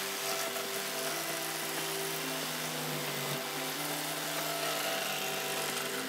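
Corded jigsaw running steadily while cutting through a table top.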